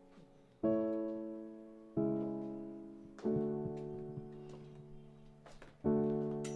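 Background music: slow piano chords, four in all, each struck and left to ring and fade before the next.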